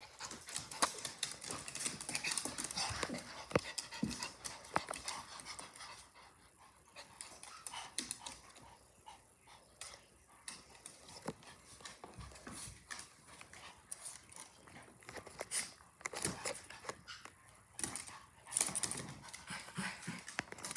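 Two Pomeranians play-fighting on a hardwood floor: panting and scuffling, with many short clicks of claws on the wood. The activity is busiest for the first several seconds and again near the end, quieter in between.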